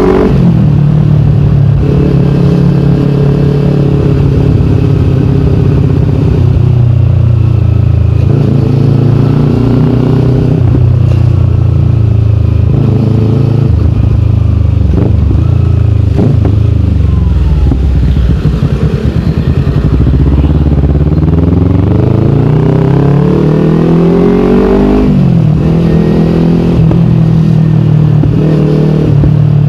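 Kawasaki Ninja 250FI's parallel-twin engine running through a KP16 aftermarket exhaust while riding, its pitch rising and falling with throttle and gear changes. Near the end the engine climbs steadily in pitch, then drops suddenly at a gear shift.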